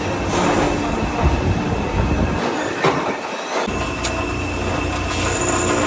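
Drill press running as a fan rotor is machined on it: a steady motor hum with brief metal-on-metal scrapes, and a thin high squeal from about four seconds in.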